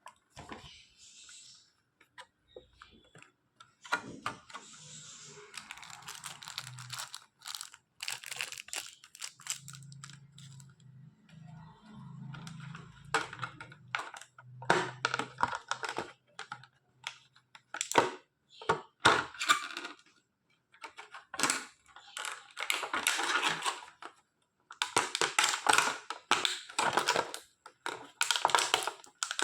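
Packaging of a Bluetooth device being handled and opened: many sharp clicks and taps with bursts of crinkling plastic and cardboard. A low hum runs for several seconds about ten seconds in.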